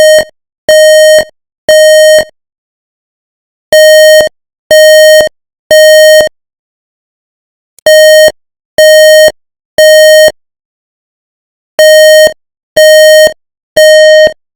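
Building fire alarm horn sounding in the temporal-three evacuation pattern: three loud, buzzy beeps about a second apart, then a short pause, four times over.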